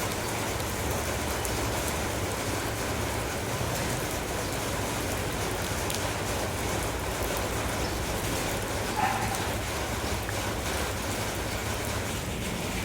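Steady rain falling on surfaces, an even hiss with scattered drop ticks. A brief high-pitched sound stands out about two-thirds of the way through.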